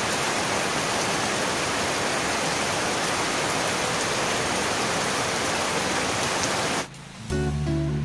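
Steady downpour of rain, an even hiss that cuts off suddenly near the end. Music with plucked notes starts just after.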